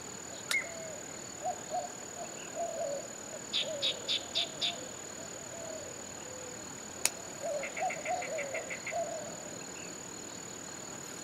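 Riverbank ambience: insects with a steady high-pitched tone, and birds calling throughout, with a quick series of five chirps about a third of the way in and a rapid run of about ten notes past the middle. Two sharp clicks, one just after the start and a louder one past the middle.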